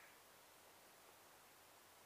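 Near silence: only a faint, steady background hiss.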